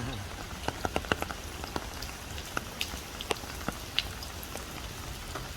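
Rain falling, with scattered single drops ticking close by over a steady low noise.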